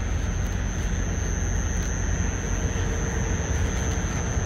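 Steady low drone of idling vehicle engines, with a thin, steady high whine above it.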